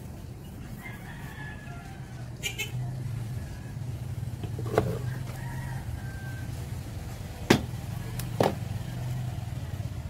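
A few sharp clicks and knocks from hands handling the amplifier board's wiring and test leads, the loudest two about a second apart in the second half, over a steady low hum. Two faint, wavering animal calls come from a distance.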